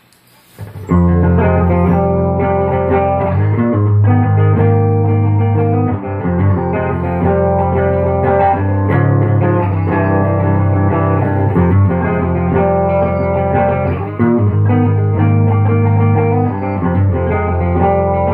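Schecter electric guitar fitted with Dialtone pickups being played as a pickup demo: sustained chords and notes with a full, heavy low end, starting about a second in.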